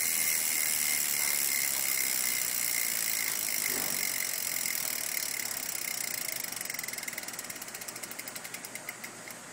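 Crank Brothers Iodine rear hub freewheeling: the freehub pawls click so fast they buzz, then the clicks slow and spread apart as the wheel spins down, stopping near the end.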